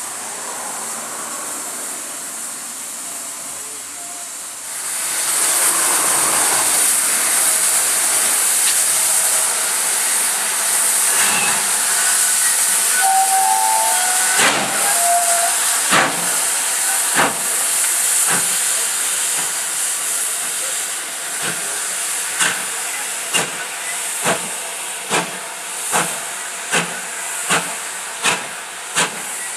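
GWR 'Hall' class two-cylinder 4-6-0 steam locomotive starting away. A loud hiss of steam builds about five seconds in, with a few short whistle notes partway through. Then its exhaust beats begin, slow at first and quickening to more than one a second as it gets under way.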